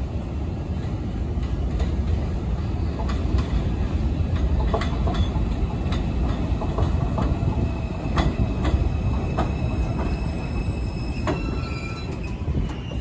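New York City subway train running along the track, heard from on board: a steady low rumble with sharp clicks of the wheels over rail joints, and a faint high whine near the end.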